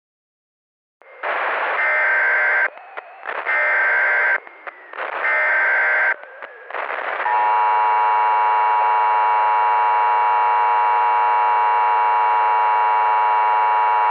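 Emergency Alert System tones: three roughly one-second bursts of SAME header data noise with short gaps between them, then the steady two-tone EAS attention signal starting about seven seconds in and holding for about eight seconds.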